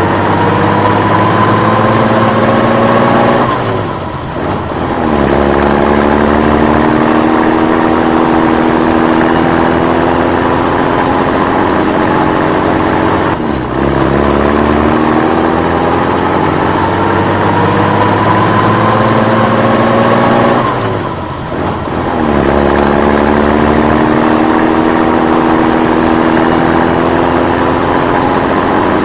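Engine sound effect of a motor vehicle accelerating, laid over the picture of a toy tractor: a steady engine note climbs slowly in pitch, dips briefly and falls back about four, thirteen and twenty-one seconds in, then climbs again.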